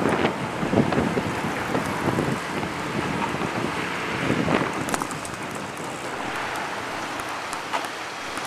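Wind buffeting the microphone in gusts, strongest in the first half, over the sound of slow city traffic.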